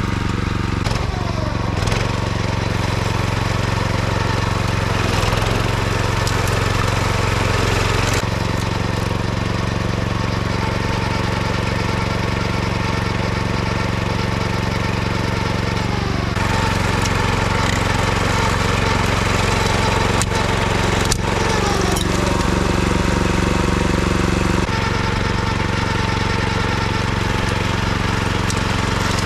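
Kyoritsu AZ646 wing mower's engine running steadily while mowing levee grass, with a few sharp clicks about two-thirds of the way through.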